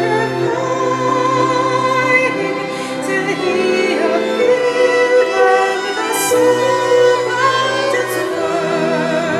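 Slow church music with several voices singing together, holding long notes with vibrato.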